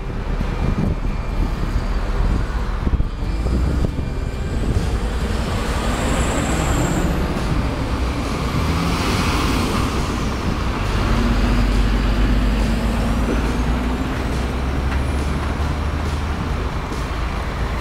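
MAN TGX tractor unit's diesel engine running at low speed as the truck creeps forward, a steady low rumble. A hiss rises and falls about nine seconds in, with a few faint high whistles gliding over it.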